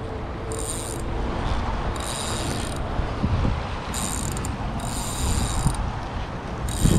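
Spinning fishing reel clicking in about five short bursts, each under a second, over a steady low rumble of wind on the microphone.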